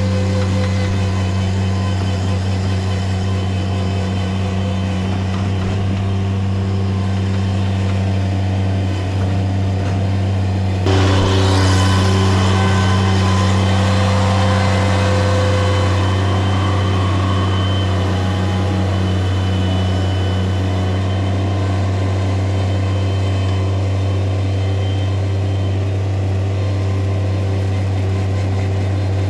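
Engine of excavating machinery running steadily. About eleven seconds in it suddenly gets louder and fuller, as if working harder under load, then settles back gradually.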